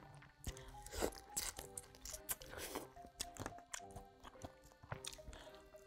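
Close-miked eating sounds: irregular crunching and chewing of kimchi. Soft background music with short held notes plays underneath.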